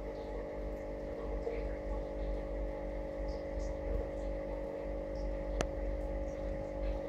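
Steady mechanical hum over a constant low rumble, with a single sharp click about five and a half seconds in.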